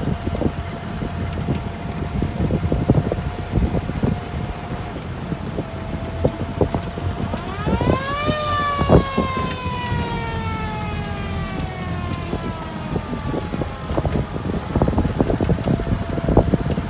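WWII jeeps driving in convoy on a gravel track, engine running, with many short rattles and jolts from the rough road. About eight seconds in, a siren winds up quickly and then winds slowly down over about six seconds.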